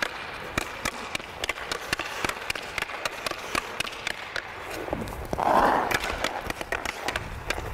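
Rapid stickhandling on ice: a hockey stick blade clicking and tapping against the puck and the ice, with skate blades scraping. A louder skate scrape comes a little past halfway.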